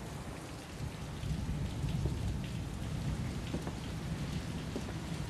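Steady rain with a low rumble of thunder underneath.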